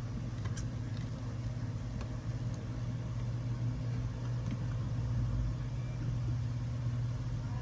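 A steady low mechanical hum, like an engine or motor running, with a few faint clicks.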